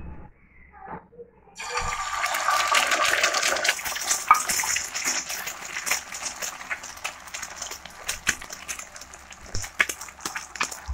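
An egg frying in hot oil on a flat griddle (tawa): the sizzle starts suddenly about a second and a half in as the egg hits the oil, loudest for the next few seconds, then settles into a steadier sizzle with crackling pops.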